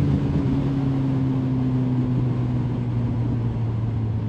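Kawasaki ZZR 1400's inline-four engine running at a steady cruise, its note drifting slightly lower, heard from the rider's seat with wind rush over it.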